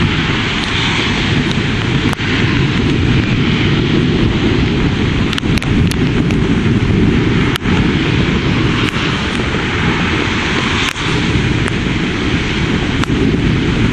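Thunderstorm wind gusting over the microphone with a steady rush of rain, broken by several sharp ticks.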